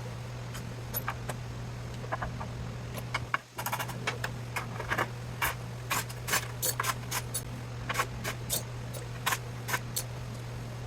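Irregular sharp clinks and taps of metal scrap parts being handled and set down on a workbench, several a second at the busiest, over a steady low hum.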